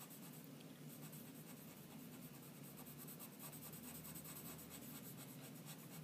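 Chalk pencil scratching on drawing paper, faint, in many quick short strokes as colour is shaded in, starting about a second in.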